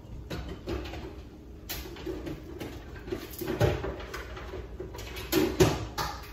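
Scattered knocks and clunks of things being handled in a small room, with a few louder thumps in the second half.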